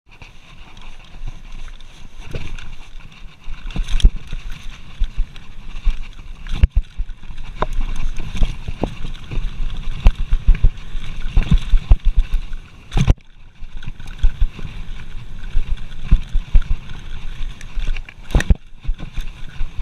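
Mountain bike descending a rough dirt trail: tyre rumble and wind on the microphone, broken by frequent sharp knocks and rattles as the bike hits bumps. Quieter for the first few seconds, then louder once the descent gets going.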